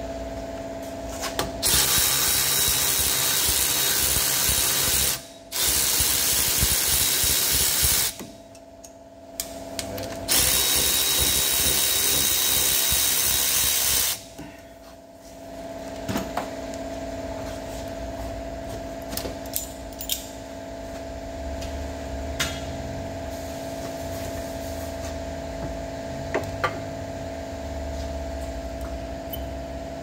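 A power wrench spins out the 14 mm rear brake caliper bolts in three runs of a few seconds each, with a steady hiss. After that come light metal clicks and clunks as the caliper is handled, over a steady background hum.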